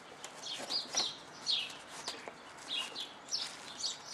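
Small birds chirping repeatedly: many short, quick chirps that slide down in pitch, with a few faint clicks among them.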